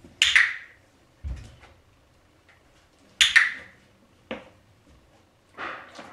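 Footsteps thudding softly on the floor as a person walks around a dog lying on its bed, with a few short hissing sounds in between.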